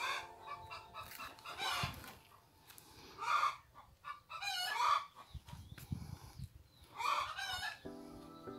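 Domestic chickens calling repeatedly in a series of short calls, with background music holding sustained chords near the end.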